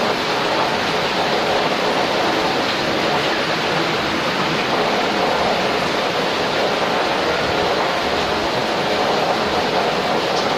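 Steady rushing hiss of water boiling hard in a large metal steamer pot (dandang) over a wood fire, with steam pouring out.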